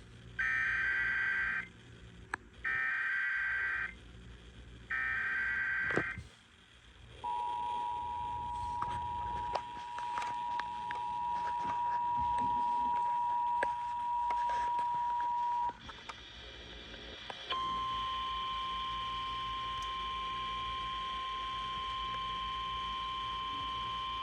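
Emergency Alert System tones: three short bursts of warbling SAME digital header data, then the two-tone EAS attention signal held for about eight seconds, and after a brief break a single steady alert tone. Together they announce a severe thunderstorm warning.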